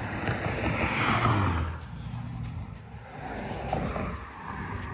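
A motor vehicle passing close by: a low rumble with tyre-and-engine hiss that swells to a peak about a second in, eases off, then swells again near the end as more traffic goes by.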